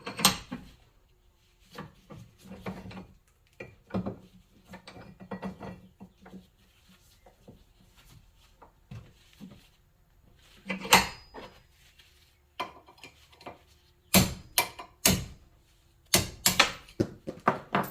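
Hand tools clinking and knocking against metal parts of the tractor's shift linkage while a part is worked into place, with scattered light clicks and several sharp metal strikes, the heaviest in a cluster near the end.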